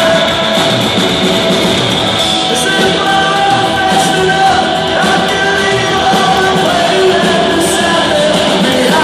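A live rock band plays with lead vocals, a guitar and drums, heard loud from among the audience in a concert hall.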